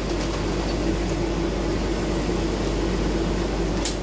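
Steady mechanical hum of a CO2 laser cutting machine's running fans and pumps, with one steady tone in it. A short sharp click comes near the end.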